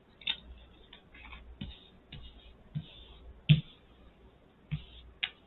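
Playing cards being handled and set down on a table: a scatter of light clicks, slides and soft taps, with the firmest tap about three and a half seconds in.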